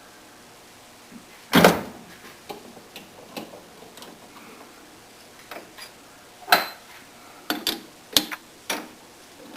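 Metal clanks and clicks from clamps and a bolt being loosened on a lathe setup holding angle iron to a steel shaft. There is one loud knock about a second and a half in, another about six and a half seconds in, and a quick run of sharp clicks near the end.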